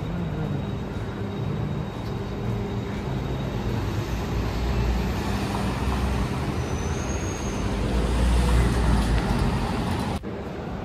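Outdoor street traffic noise: a steady rumble of vehicles that grows louder about eight seconds in.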